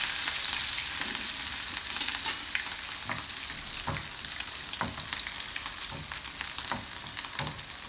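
A freshly turned chapli kabab (minced-meat patty) shallow-frying in oil in a pan over low heat: a steady sizzle with scattered crackles and pops, slowly getting quieter.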